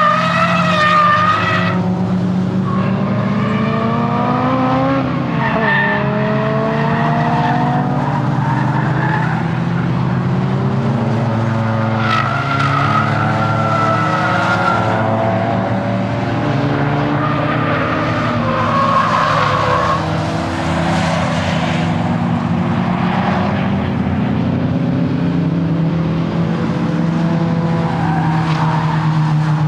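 Nissan S15 Silvia's SR20 four-cylinder engine being driven hard, its revs climbing and dropping repeatedly through acceleration, shifts and braking, with tyres squealing in stretches through the corners.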